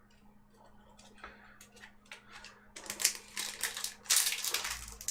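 Light clicks, then from about three seconds in a dense crackling and crinkling: a foil Yu-Gi-Oh booster-pack wrapper being handled.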